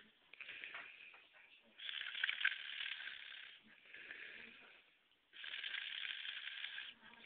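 Loud snoring in slow, even breaths. A harsh, hissing breath lasting about a second and a half alternates with a softer, rattling breath, repeating about every three and a half seconds.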